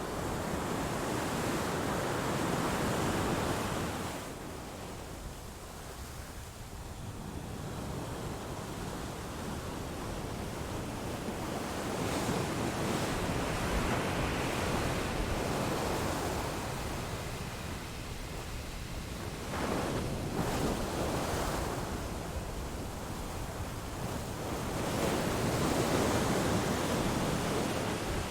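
Waves washing onto a shore: a rush of surf noise that swells and fades, with three main surges.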